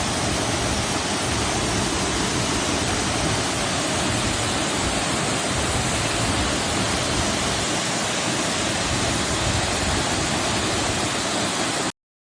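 A large waterfall's steady rush of falling water, cutting off abruptly near the end.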